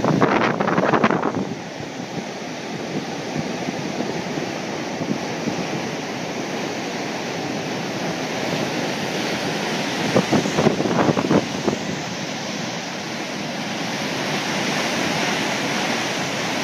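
Water rushing steadily through a dam spillway, churning whitewater making a continuous noise. Louder buffeting from wind on the microphone comes in the first second or so and again about ten seconds in.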